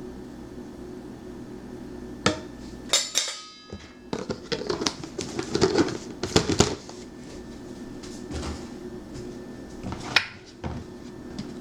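Metal cooking utensils and pans clattering and clanking, a run of sharp knocks between about two and seven seconds in, one of them ringing on, and another clank near the end, over a steady low hum.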